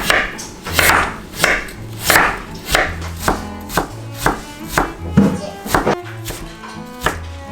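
Knife chopping food on a cutting board in a steady rhythm, about three strokes a second, over background music.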